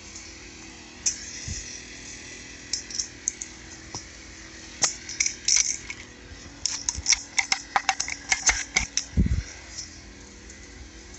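Metal clicks and clinks of stainless pressure-washer wand parts and quick-connect fittings being handled and fitted together as another nozzle head is added to the manifold. A few clicks come at first, then a quick cluster of them, then a single dull thump near the end, over a faint steady hum.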